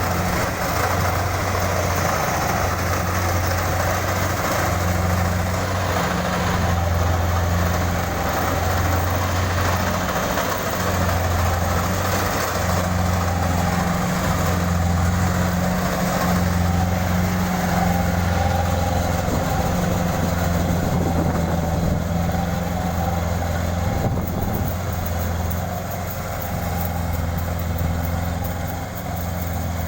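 Kubota DC-70 combine harvester's diesel engine and machinery running steadily at a constant pitch, easing a little in loudness over the last few seconds.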